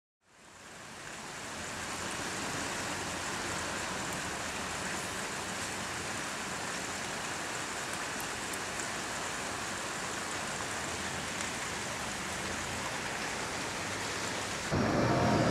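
Steady heavy rain, fading in at the start. About a second before the end it cuts abruptly to louder street noise with a low hum.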